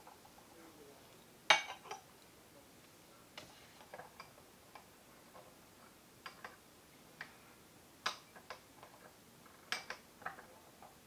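Light, irregular clinks and taps of a porcelain gaiwan lid against its bowl, the sharpest about one and a half seconds in.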